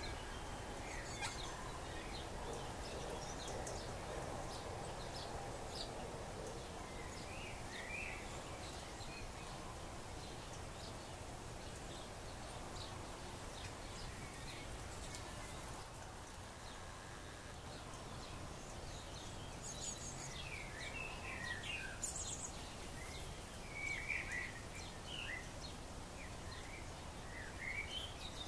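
Short bird chirps and twitters, bunched in the first few seconds and again in the last third, over a steady low background noise.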